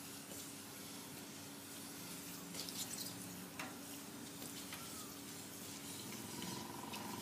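Water streaming from a hose-fed scrubbing brush as it is worked over a glass pool fence panel and the paving, a steady faint hiss with a few light clicks.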